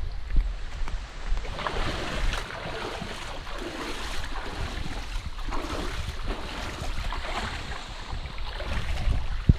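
Waterfall rushing steadily as the water pours into its pool, with wind buffeting the microphone in low rumbles, sharpest at the start and near the end.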